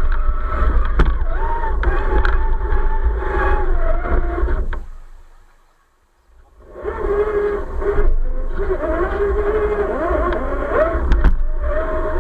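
Electric motor and gearbox of an RC scale Jeep Gladiator crawler whining, the pitch rising and falling with the throttle, over a low rumble. The sound fades away for about a second midway, then returns.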